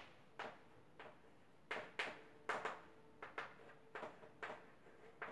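Chalk writing on a chalkboard: a faint string of short, irregular scratches and taps as a word is written, roughly two or three strokes a second.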